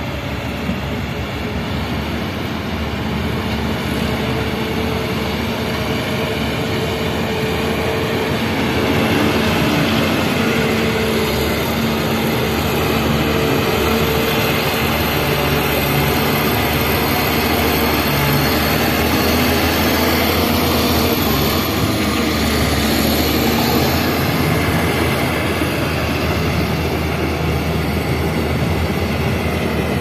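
Heavy diesel earthmoving machinery working close by: a crawler bulldozer's engine runs steadily under load as it pushes soil, and a dump truck's engine runs as well. The noise grows louder over the first several seconds.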